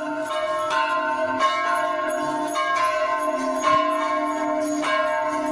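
Bells ringing, struck about once a second, each stroke's long ringing tones overlapping the last.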